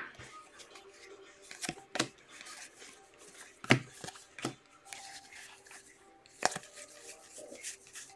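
A stack of football trading cards flipped through by hand: faint, scattered taps and slides of card against card, with a few sharper clicks.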